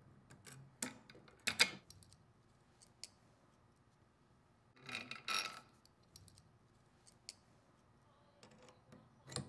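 Light metallic clicks and ticks of needle-nose pliers working the spring-wire waggle arm wire and link loose from the controller's metal housing, with a louder click about a second and a half in and a short rattling clatter of small metal parts about five seconds in.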